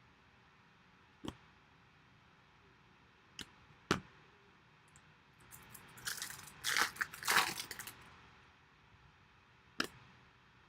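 A few sharp clicks from trading cards being handled, then about two seconds of crinkling and tearing, from about six to eight seconds in, as a 2015 Bowman Chrome card pack wrapper is ripped open.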